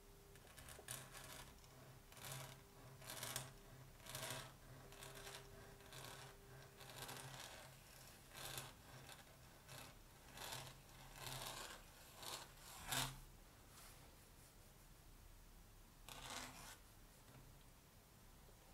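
Steel pointed nib (Hunt 101) scratching across paper as ornamental strokes are drawn: a faint scratchy stroke roughly every second, each about half a second long. The strokes stop after about 13 seconds, with one more a few seconds later.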